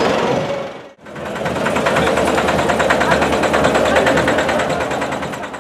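A tractor engine pulling a parade float, running with a fast, even chug. Before it, in the first second, other sound fades out and there is a sharp cut.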